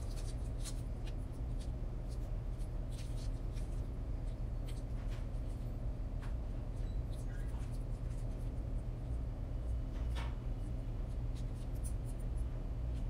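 Fork tines pressing and scraping along the crimped edges of pastry dough on parchment paper: light, irregular scratchy clicks over a steady low hum.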